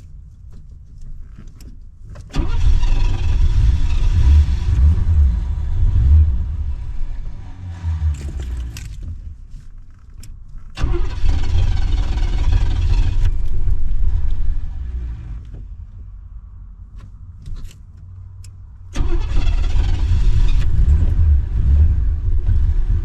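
A flooded Chevy engine being cranked over in three long bouts that start abruptly, sputtering and chugging without staying running: flooded and hard to start.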